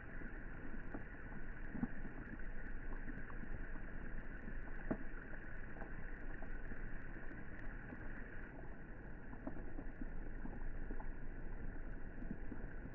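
Rain falling on the water of a swimming pool: a steady wash of rain with scattered small drop plinks.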